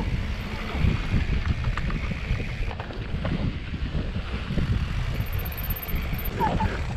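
Mountain bike riding fast down a dry dirt trail: tyres rumbling and the bike knocking over bumps, with wind blowing on the microphone.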